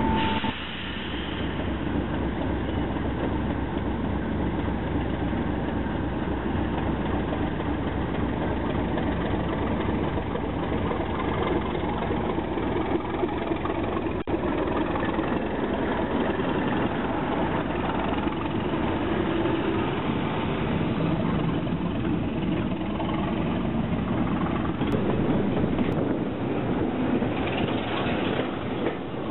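Class 37 diesel locomotive's English Electric V12 engine idling steadily at close range. Near the end it gives way to the running noise of a moving train.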